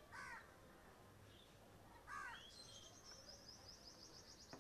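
Faint bird calls: two short chirps about two seconds apart, followed by a high, rapid trill lasting about two seconds.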